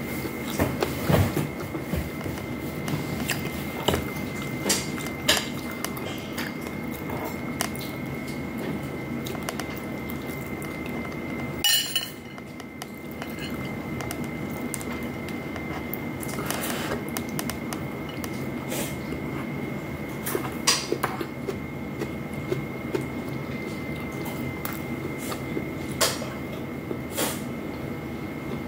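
Hand-eating sounds: chewing and scattered light clicks of fingers and food against a plate, with one louder knock about midway, over a steady room hum with a faint high whine.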